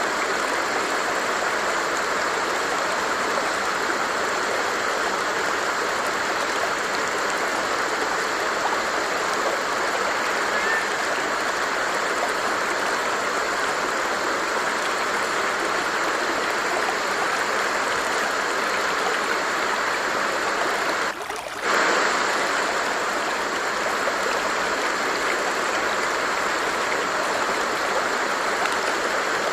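A water stream flowing steadily, a continuous even rush of running water, which briefly dips and comes back about two-thirds of the way through.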